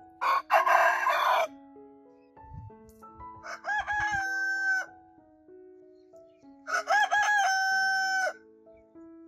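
Rooster crowing three times, each call about a second and a half long. The first is harsh and raspy. The next two are clearer: a few short wavering notes, then a long even note that cuts off sharply.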